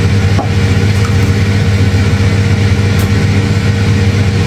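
Air fryer running: a steady, loud motor-and-fan hum with no change in pitch.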